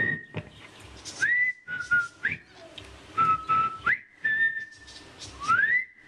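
A man whistling an imitation of a female northern cardinal's song: a series of clear notes, some held level and ending in a quick upward slide, others gliding up.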